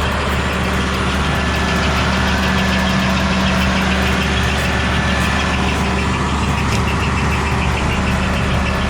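Powerscreen Commander 510 screening plant running steadily at revs, its engine and hydraulics giving a constant drone, with a thin squeak from one of its conveyor rollers, which cannot be greased.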